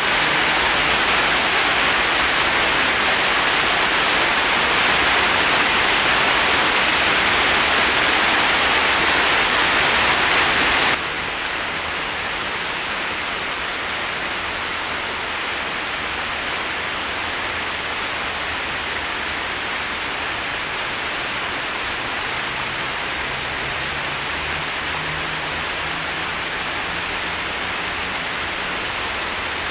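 Heavy tropical rain falling in a forest, a steady hiss of drops on leaves, stone and puddles. About eleven seconds in it cuts suddenly to a quieter, duller rain sound.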